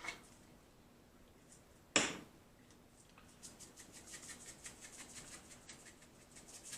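A single sharp knock about two seconds in, then a run of quick, faint rattling ticks as dry pork rub is shaken out of a seasoning shaker over the meat.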